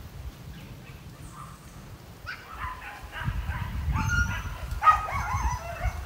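Dogs yelping and barking in a string of short, high-pitched calls, starting about two seconds in.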